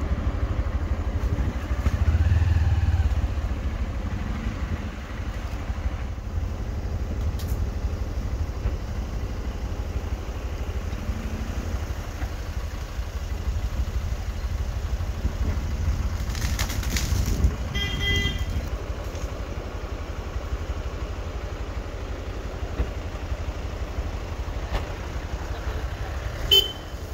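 Steady low rumble of a motor vehicle's engine running close by, with a short horn toot about two-thirds of the way through.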